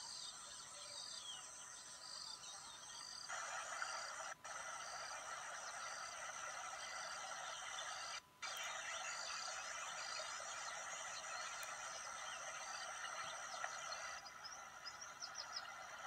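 Nature ambience: a dense, steady chorus of many small animal calls, with one short high call repeating evenly a little more than once a second. It grows louder about three seconds in, cuts out briefly twice, and eases back near the end.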